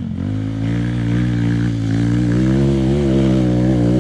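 Motorcycle engine running at a fairly steady, moderate speed, its pitch wavering slightly; it comes in abruptly at the start.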